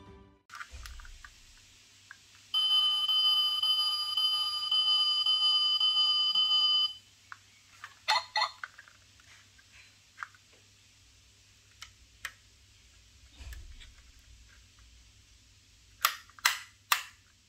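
A 1:32 diecast Ford F150 Raptor toy's sound module plays a steady electronic tone through its small speaker for about four seconds, then cuts off. Afterwards come a few light clicks of the toy being handled, and three sharp clicks near the end as its hood is worked.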